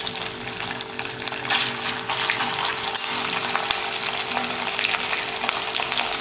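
Tadka: cumin seeds and ginger paste sizzling and crackling steadily in hot oil in a kadhai, stirred with a steel spoon.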